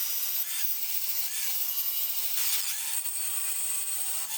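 Angle grinder grinding down a silicon bronze braze weld on a cast iron exhaust manifold, a steady grinding with a high hiss.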